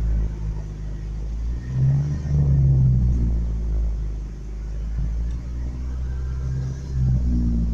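Truck engine running unevenly, rising in revs and loudness about two seconds in and again near the end. The owner suspects it is starving for fuel, probably almost out of gas.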